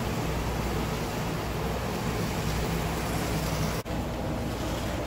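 HO scale Bachmann PCC trolley rail bus running on the layout track: a steady, noisy whir of its small motor and gears with the wheels rolling on the rails, still a little noisy. The sound breaks off for an instant nearly four seconds in.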